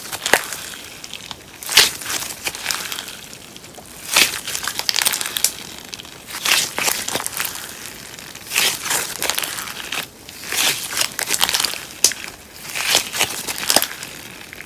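Slime mixed with paper clay being squeezed and kneaded by hand, giving crackly, crinkling squishes in repeated bursts about every second or two.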